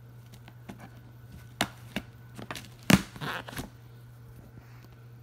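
Handling noise around a tape-sealed cardboard shipping box: a few light knocks and taps, then a sharp loud knock about three seconds in followed by a brief scratchy rustle.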